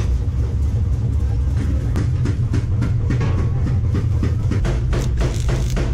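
Arc-welding set humming steadily at a low mains pitch, with irregular sharp crackles and clicks from about two seconds in that come faster near the end.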